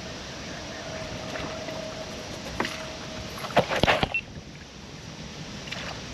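Steady wind and water noise on a small fishing boat, with a faint steady hum. Just past the middle comes a quick cluster of sharp clicks and knocks.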